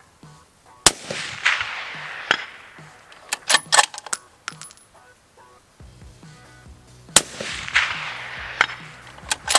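Two shots from a suppressed 6.5 Creedmoor bolt-action rifle, one about a second in and one about six seconds later, each followed by a long rolling echo. Between them the bolt is cycled with a few sharp metallic clicks.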